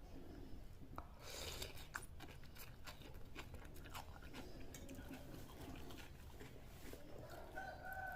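A person chewing and eating bakso meatballs close to the microphone, with scattered small clicks and a couple of brief noisy bursts. A faint pitched sound comes in near the end.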